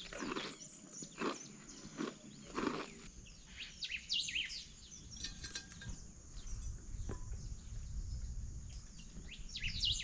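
Small birds chirping in short, quick, high calls, thickest about four to five seconds in and again near the end. Four short, soft noises come in the first three seconds.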